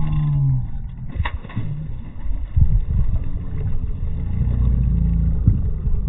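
Wind buffeting the microphone: an uneven low rumble, with a short click about a second in.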